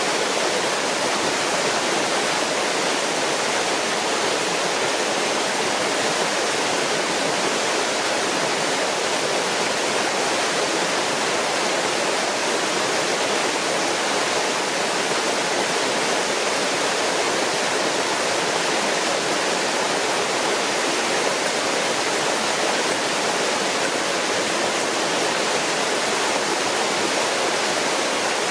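Steady rush of a waterfall on a moorland stream, water pouring and splashing without a break.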